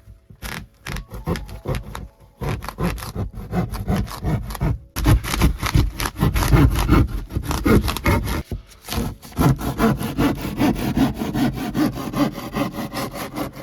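Hand saw cutting through wood in quick back-and-forth strokes, about four a second, stopping briefly twice.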